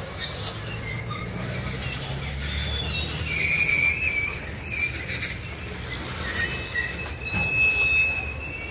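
Loaded ethanol tank cars of a freight train rolling past, steel wheels rumbling on the rails with high-pitched wheel squeal. The squeal is loudest about three and a half seconds in, and a steady squeal tone returns near the end.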